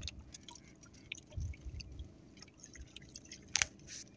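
Faint scattered small clicks and a few soft low knocks as a squid hand line is handled and wound in by hand.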